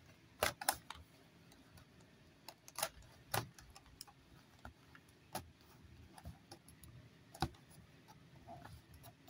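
Irregular sharp clicks and crackles of a clear plastic blister pack on a card backing being handled and pressed by fingers, with a handful of louder snaps spread through.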